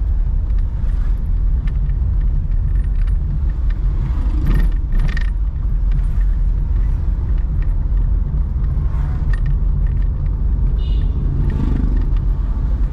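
Car driving through city traffic: a steady low rumble of engine and road noise. Two short, sharper sounds come about four and a half and five seconds in, and a brief high tone near the end.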